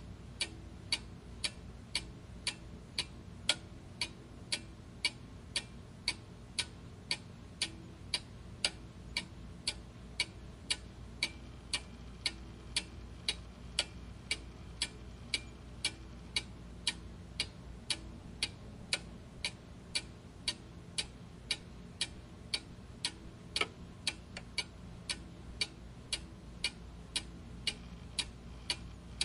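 Mechanical clock ticking steadily, about two sharp ticks a second.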